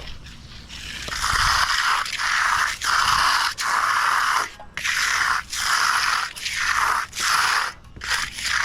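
A hand tool scraping over the concrete surface in steady back-and-forth strokes, a little more than one a second, starting about a second in.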